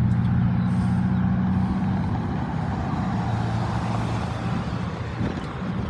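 Street traffic passing: a motor vehicle's engine hum with road noise, fading away over the first few seconds.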